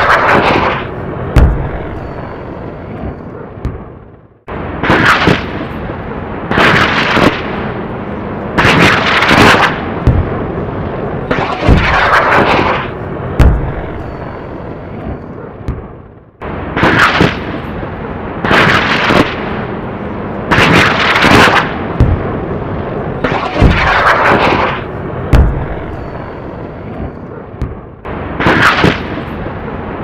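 Rocket-fire attack sound effect: rockets firing and blasting one after another, every second or two, over a constant roar. The sequence cuts out briefly and starts over about every twelve seconds.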